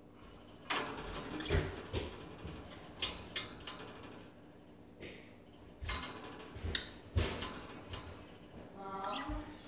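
Pet budgerigars moving about a wire cage: a scattered series of sharp knocks and rattles as they grip and climb the bars and perches, with wing flutters. A short rising squeak near the end.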